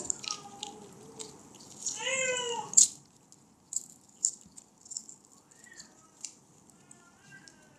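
A drawn-out, wavering high-pitched call about two seconds in, ending with a sharp click, then two fainter short calls later on. Light clicks and crinkles of the Mentos wrapper and plastic wrap being handled run throughout.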